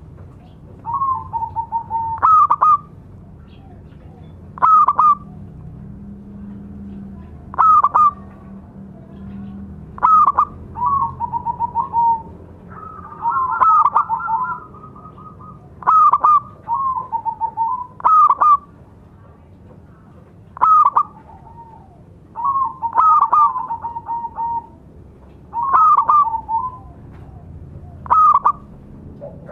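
Zebra dove (perkutut) singing: a short phrase of quick cooing notes about every two to three seconds, each phrase opening with a sharp, higher note and often trailing into a run of lower, trilled coos.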